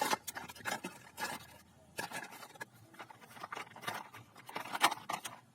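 Irregular clicks, taps and light scrapes from toys in plastic packaging being handled and put into a shopping basket.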